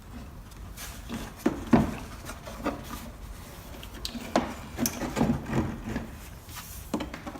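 Scattered clicks, knocks and rubbing from handling a car's headlamp assembly as the turn-signal bulb socket is twisted in to lock, with a cluster of knocks about five seconds in.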